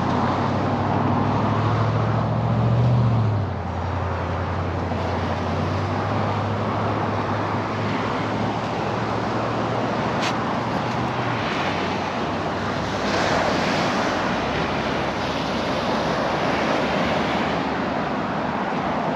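Ocean surf washing in with wind noise on the microphone, under a low steady engine hum that drops about three and a half seconds in and fades out at about eleven seconds.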